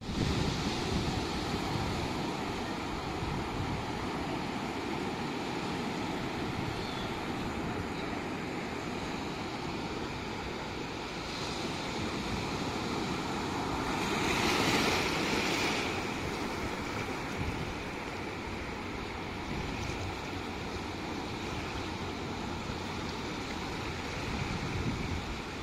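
Sea surf washing in over a shallow, flat beach: a steady rush of waves, with one wave surging louder a little past halfway.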